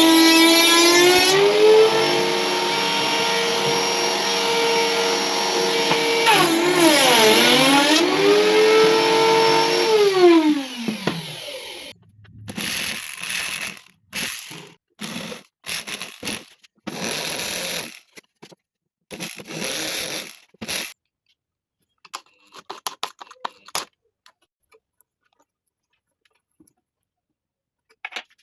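An electric power tool's motor running at a steady pitch, sagging and recovering once about seven seconds in, then winding down with falling pitch about ten seconds in. It is followed by a string of short bursts of noise and then scattered faint clicks.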